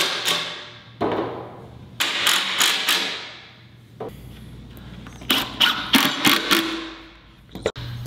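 Hammer or mallet blows on wood in short quick runs of three or four knocks, each ringing briefly, over quiet background music.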